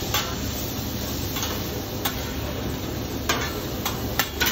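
Food sizzling on a steel flat-top griddle with a steady hiss, while metal spatulas tap and scrape on the cooking surface in several sharp clicks, a quick cluster of them near the end.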